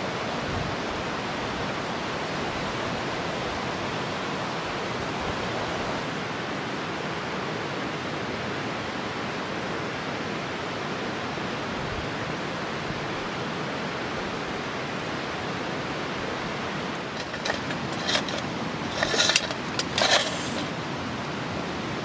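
Steady rushing of a river. Near the end, a short run of sharp clicks and rustles rises over it.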